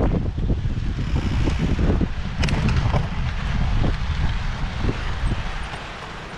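Wind rumbling on a handlebar-mounted camera's microphone as a gravel bike rides over rough rock and gravel, with irregular knocks and rattles from the bike jolting on the trail. Quieter near the end.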